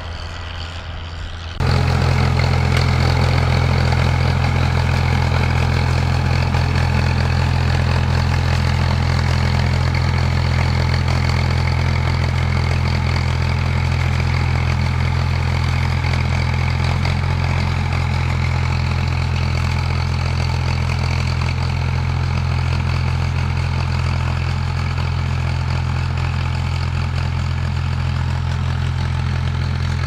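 Vintage Ford tractor engine running at a steady speed while pulling a tine cultivator, a constant low drone that does not change in pitch. Before it, for about the first two seconds, a quieter tractor engine is heard, then an abrupt cut.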